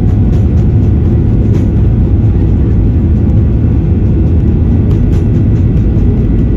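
Boeing 737-800's CFM56-7B turbofan engines heard from inside the cabin over the wing: a loud, steady low rumble with faint steady whine tones above it as the airliner rolls along the runway.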